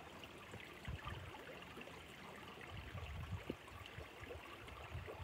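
Faint trickling and splashing of water from a garden koi pond's waterfall, with a few low bumps now and then.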